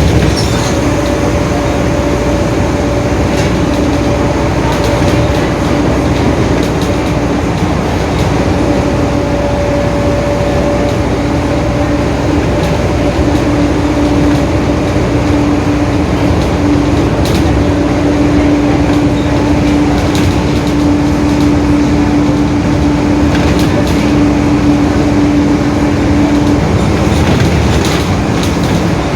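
Mercedes-Benz OF-1721 Bluetec 5 bus running at steady speed, engine and road noise under a steady whining drone from the differential, which stops near the end.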